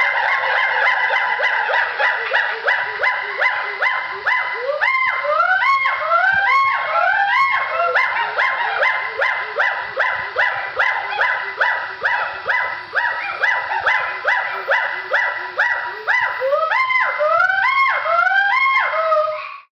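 A chorus of animal calls: rapidly repeated pitched notes, about three or four a second, many rising in pitch like whoops, overlapping throughout and cutting off abruptly at the end.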